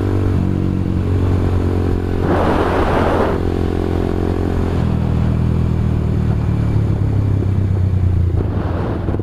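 Motorcycle engine running steadily while riding, its note dropping about five seconds in, with a short rush of noise about two seconds in.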